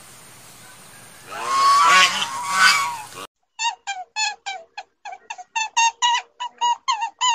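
Animal calls: a loud honking call of about two seconds, then, after an abrupt cut, a quick run of short honking calls, about three a second.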